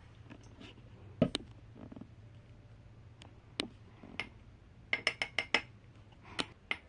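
Small hard objects clinking and tapping over a low steady hum: a knock about a second in, scattered taps, then a quick run of about six ringing clinks around five seconds in.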